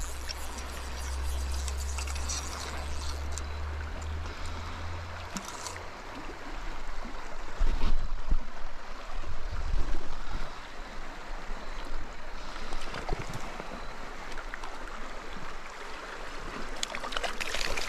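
A mountain trout stream flowing and gurgling over rocks, low and clear, with a low rumble in the first few seconds and a few dull knocks about eight and ten seconds in.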